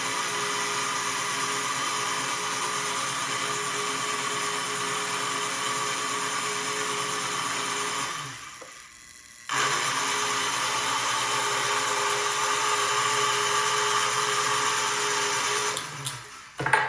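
The motor of a postwar Lionel No. 182 magnetic crane running steadily through its gears, driven from the pushbutton controller to work the hoist or swivel with the energized magnet holding its load. It runs for about eight seconds, stops briefly, then starts again and runs for about seven seconds before cutting off.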